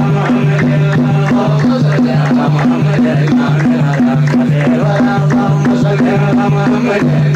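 Instrumental break in a menzuma song: a steady rhythmic backing with a low note pulsing about three times a second, a melody above it, and percussion.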